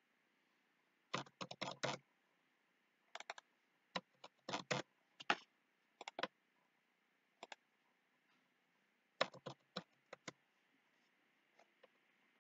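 Computer mouse and keyboard clicking in short bursts of a few quick clicks, with pauses of a second or so between bursts.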